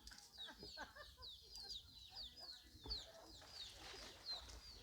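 Chickens peeping faintly: a steady run of short, high, falling chirps, several a second.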